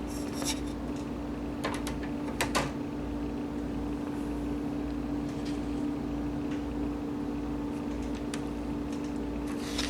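Printed circuit boards being handled and set down, a few light clicks and rustles in the first few seconds and again near the end, over a steady electrical hum.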